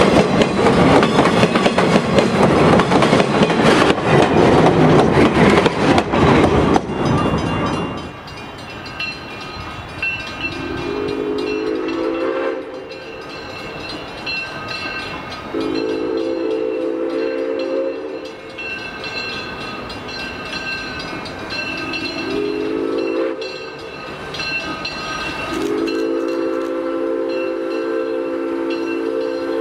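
Railroad cars rolling past close by with loud wheel-on-rail rumble for about seven seconds. Then a steam locomotive's multi-tone chime whistle blows the grade-crossing signal, long, long, short, long, with a crossing bell ringing steadily underneath.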